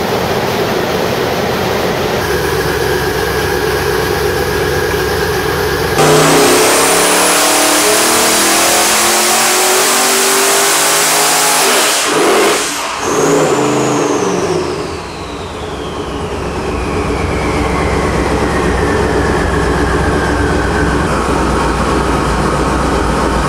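Twin-turbocharged Ford 428 Windsor V8 running on an engine dynamometer. It runs steadily, then about six seconds in goes to full throttle, with engine revs and a high turbo whine climbing together. About twelve seconds in the pull cuts off abruptly, and the turbo whine falls slowly over several seconds as the engine drops back to steady low-speed running.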